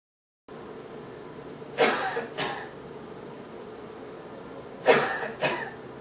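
A man coughing into a surgical mask: two double coughs about three seconds apart, over a steady background hiss.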